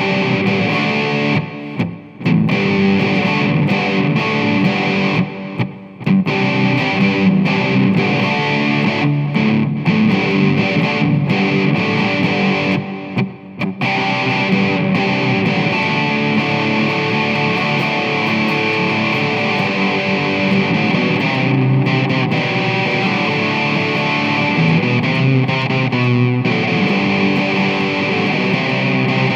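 Distorted electric guitar music, playing chords and riffs, with brief breaks about two, six and thirteen seconds in.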